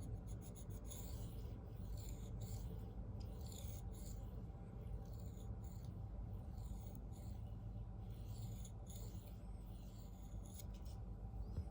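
Steel knife edge of a Spyderco Native 5 in CPM 4V drawn across a hand-held Venev F800 bonded diamond stone in light, edge-trailing scraping strokes, about one a second, to flip the burr.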